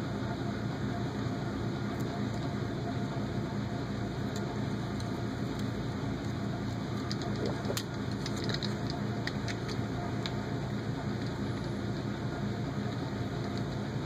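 Steady hum of a room fan or air conditioner, with faint scattered clicks of a hex driver and small metal parts being handled at a workbench.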